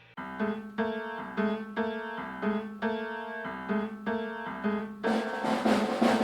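Background music: a keyboard plays a repeating pattern of short notes, swelling into a louder, fuller passage about five seconds in.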